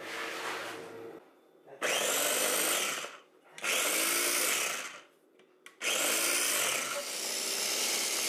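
Small electric mini food processor (press-top chopper) pulsed three times, its motor running with a steady whine. The third run lasts longest. It is puréeing baked sweet potato with breast milk into a liquid baby-food purée.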